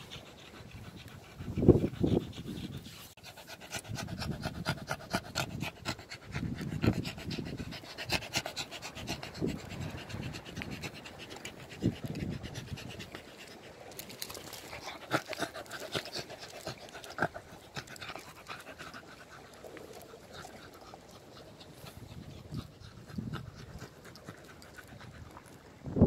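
Beagle panting in quick, even breaths, with a few low thumps among them.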